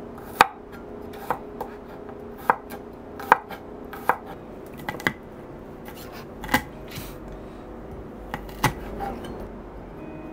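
Santoku knife chopping garlic and cherry tomatoes on a wooden cutting board: about a dozen sharp, unevenly spaced knocks of the blade against the board.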